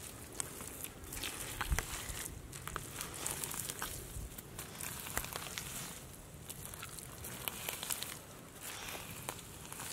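Bare hands digging and scooping through wet mud and matted grass, a continuous irregular run of small clicks and crackles.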